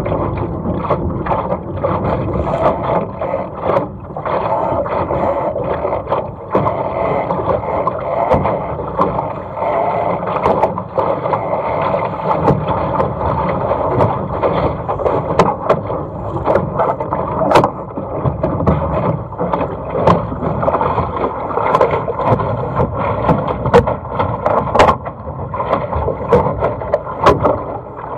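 Water rushing and slapping against the hull of a small sailing dinghy under way, with frequent short, sharp splashes and knocks.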